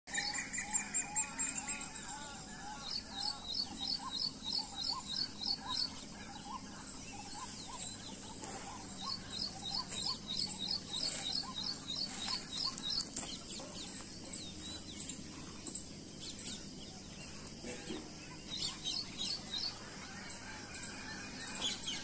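Several birds chirping and singing. One repeats a quick series of high notes, about four a second, in runs lasting a few seconds, over lower warbling calls from other birds.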